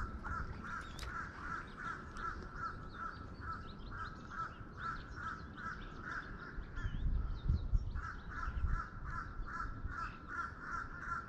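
An animal calling in a steady rhythm, about three pulses a second, with a short pause a little past the middle and faint higher chirps around it. A low rumble rises briefly about two-thirds of the way through.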